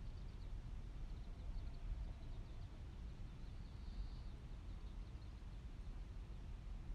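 Quiet outdoor ambience: a steady low rumble under faint, high, rapid bird chirps that come in short runs, with one longer call just before the end.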